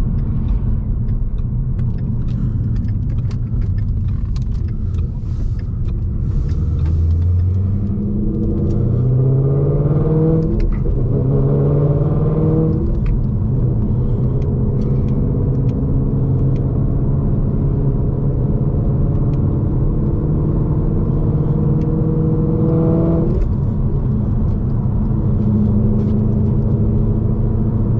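2016 Mustang GT's 5.0 Coyote V8, breathing through Kooks headers and a Corsa Extreme catback exhaust, heard from inside the cabin: a steady low drone, then a pull about a quarter of the way in. Its pitch rises and drops abruptly twice, as at gear changes, holds a steady higher note, and drops again near the end.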